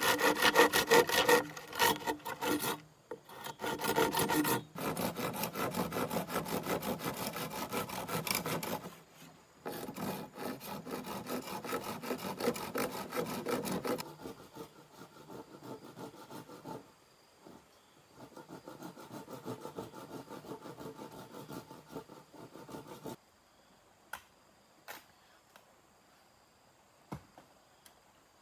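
Hand saw cutting bamboo in quick back-and-forth strokes, broken by short pauses. The strokes grow fainter about halfway through and stop several seconds before the end, leaving a few faint clicks.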